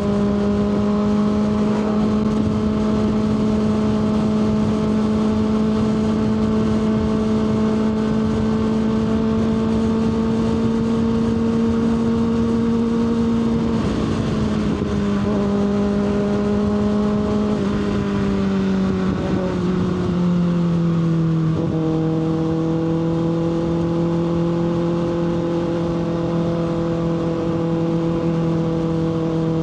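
Kawasaki ZX-6R inline-four engine running at a steady high cruising speed over wind noise, its pitch slowly creeping up, then dropping in steps about halfway through and again a few seconds later before settling lower.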